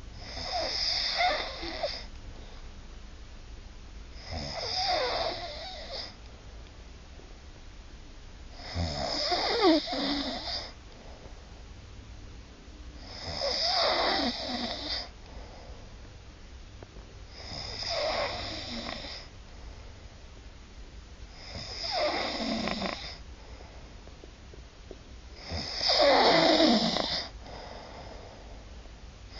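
A person snoring in a steady rhythm: seven snores about every four seconds, each lasting one to two seconds.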